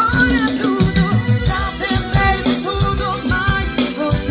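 Pop music with singing and drums played loudly through a ported box of two 6x9-inch Hurricane quadaxial car speakers. The owner hears it as very strong and loud, with the treble dominating and little deep bass.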